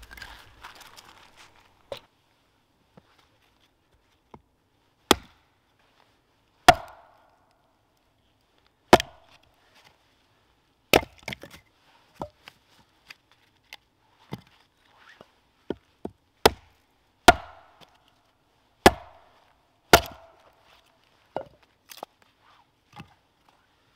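Hatchet chopping and splitting short logs, about fifteen sharp chops at uneven gaps of one to two seconds, the hardest ones ringing briefly.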